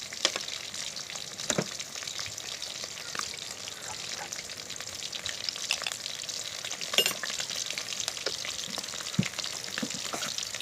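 Onion and tomato masala sizzling in hot oil in a pan while being stirred, with a steady frying hiss and a few sharp clicks of the spoon against the pan.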